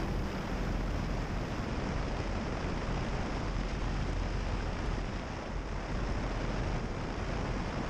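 Steady wind rush on a camera mounted outside a Cessna 170 as it lifts off a grass strip and climbs, with the engine and propeller running at takeoff power underneath.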